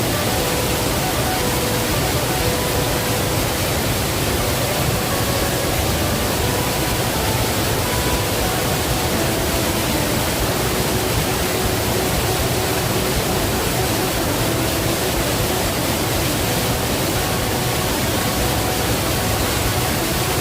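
Waterfall's water rushing and splashing in a steady, unbroken wash of noise.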